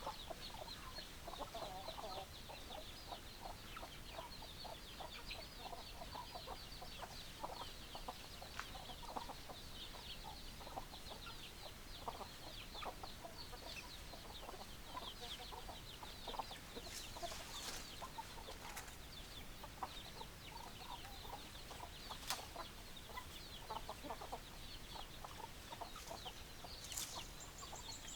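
A flock of chickens clucking, many short calls overlapping, with a steady stream of high, quick chirps above them.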